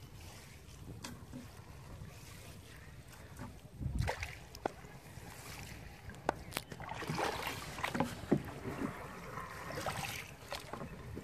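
A wet monofilament fishing net being hauled by hand out of the river into a wooden boat: water dripping and splashing off the net, with a few sharp knocks, over low wind rumble on the microphone. The splashing grows busier in the second half.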